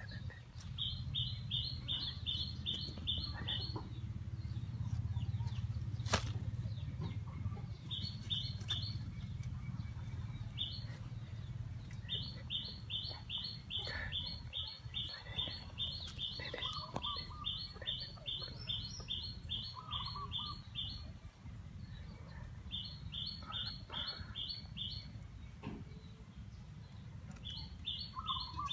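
Frogs calling after rain: a high-pitched call of short, evenly repeated notes, about three a second, given in bouts of a few seconds, with a few lower chirps in between, over a steady low rumble.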